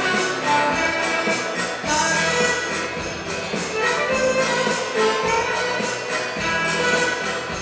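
Instrumental music with sustained melody notes over a steady beat of jingling percussion.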